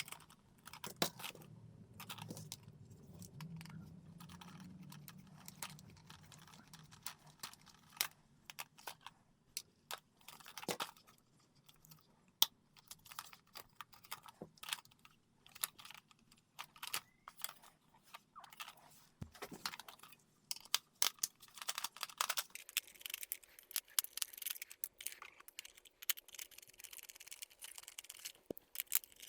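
Hands handling a cheap plastic toy robot and its packaging: irregular clicks, taps and crinkles, getting busier near the end.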